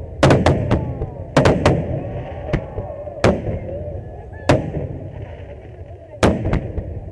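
Fireworks display: aerial shells going off in a series of sharp bangs, a quick cluster of six in the first two seconds, then single bangs every second or so.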